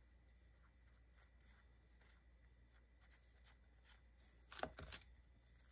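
Mostly near silence with faint small ticks, then a brief cluster of louder scrapes and clicks about four and a half seconds in: a toothpick and waxed paper cup working against a glass candle lid as glittery UV resin is pushed into place.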